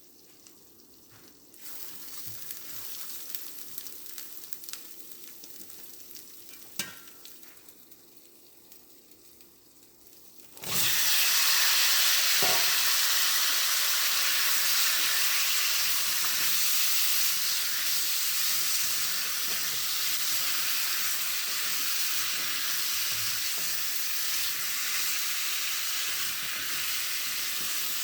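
Food frying in a pan: a light sizzle with a single click, then about ten seconds in a sudden loud, steady sizzle that eases a little toward the end.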